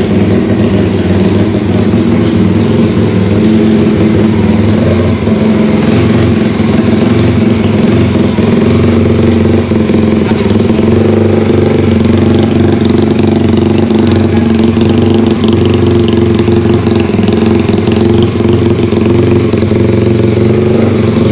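Drag-built underbone motorcycle engine running steadily through its aftermarket exhaust, loud and even in pitch without being revved.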